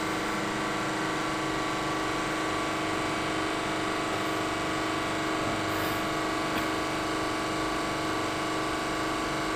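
Tensile testing machine for steel running steadily under load, a constant mechanical hum with several steady tones.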